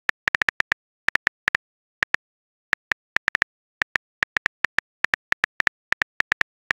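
Smartphone keyboard typing sound effect: short, identical click-taps, one per letter, coming in quick irregular runs with brief pauses as a text message is typed.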